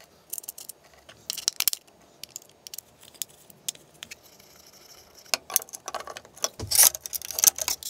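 Small steel machine screws and washers clinking and rattling as they are handled and fitted onto a 3D-printed plastic plate: bunches of sharp little clicks, with a quieter spell in the middle.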